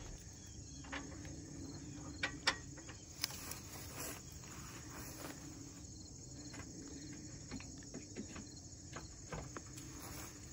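Insects chirping steadily in grass, with a few light clicks and knocks in the first few seconds from handling the hitch-mounted winch.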